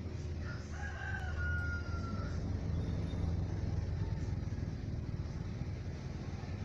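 A rooster crows once, a long call starting about half a second in and falling slightly in pitch at the end, over a steady low hum.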